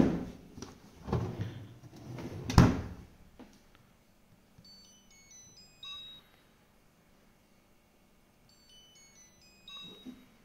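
Drawer of a coffee-table fridge/freezer pushed shut with a few thuds and a sharp knock, then the table's touch control panel plays a short electronic jingle of stepped beeps, twice, a few seconds apart.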